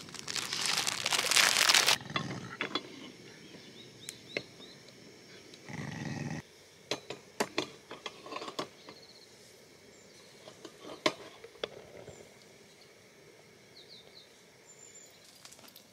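Plastic packaging crinkling for about two seconds as a bag of steamed meat buns is handled, followed by scattered light clicks and knocks as a hot sandwich maker on a camping gas burner is worked.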